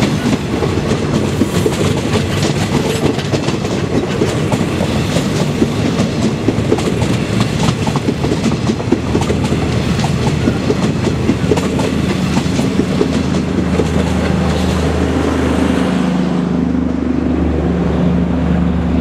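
Train of passenger coaches rolling past close by, wheels clacking over the rail joints with a dense rattle. About three-quarters of the way through, the clatter fades as the last coach goes by, leaving a low steady hum.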